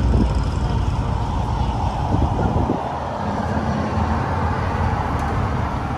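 Street traffic: motor vehicles running along the road, with a low engine hum that is strongest in the first half and eases off after about two and a half seconds.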